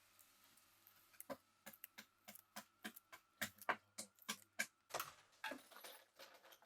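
Irregular light clicks and taps, a dozen or more, starting about a second in and coming at an uneven pace.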